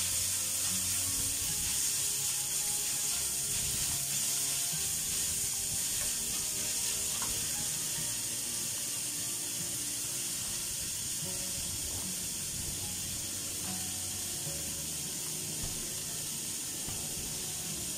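Sliced chillies and shallots sizzling in hot oil in a steel wok, a steady hiss, with a wooden spatula stirring and scraping the pan near the start.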